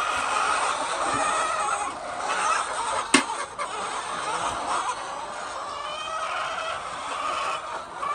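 A flock of chickens clucking continuously, many calls overlapping, with one sharp click about three seconds in.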